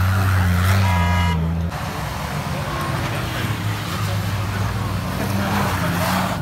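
SUV engine running hard at a steady high note as the vehicle spins its wheels in soft sand, the note dropping away about two seconds in. A short high-pitched tone sounds about a second in, and a hiss of sand spray and wheel noise builds toward the end.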